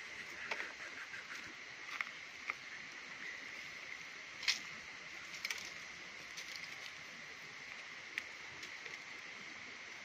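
Steady rushing of a stream, with scattered sharp clicks and knocks over it, the loudest about halfway through.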